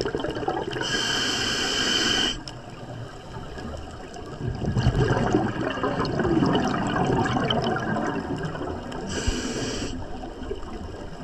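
Scuba regulator breathing underwater: a hissing inhale about a second in, a long bubbling exhale through the middle, and a second, shorter inhale hiss near the end.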